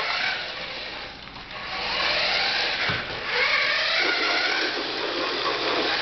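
Small electric motor of a remote-control toy whirring. It dips about a second in, then runs louder with a wavering pitch.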